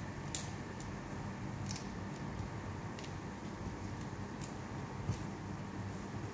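Covered pot of vegetables cooking on a gas stove: a steady low hiss with about five sharp, scattered ticks and pops, the loudest about four and a half seconds in.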